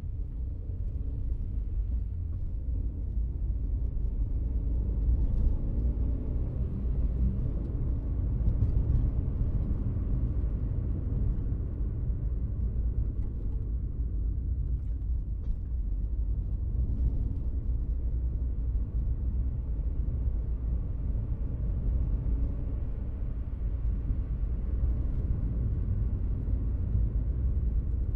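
Car cabin ambience: the steady low rumble of a car heard from inside, with a few faint clicks.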